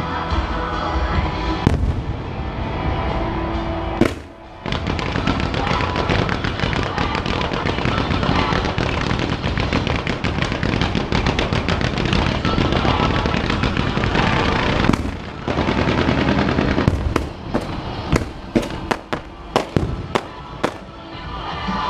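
Fireworks display over a music soundtrack. There are single loud bursts about two and four seconds in, then a dense run of rapid crackling reports for about ten seconds, then a string of separate sharp bangs near the end.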